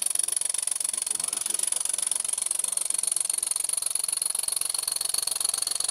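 Anton six-cylinder V model steam engine running fast on compressed air: a rapid, even exhaust chuffing with a steady high hiss.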